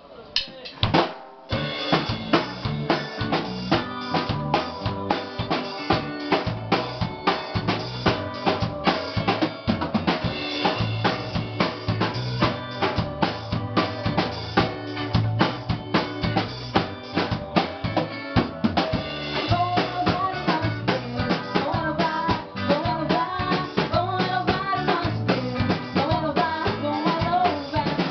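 Carnival band playing, led by loud drumming on bass drum and snare in a fast steady beat, with a wavering melody over it. The music starts about a second and a half in.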